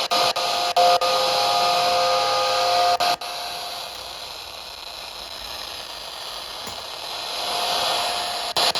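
FM radio static: even hiss from the receiver tuned between stations during a band scan. There are a few sharp clicks and faint steady tones in the first three seconds. After a click about three seconds in, the hiss drops to a softer level.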